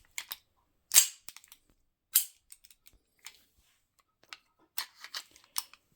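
Sharp metallic clicks and clacks of a magazine being handled in a KWC-made Remington 1911 CO2 air pistol, the loudest about one and two seconds in, with lighter clicks between.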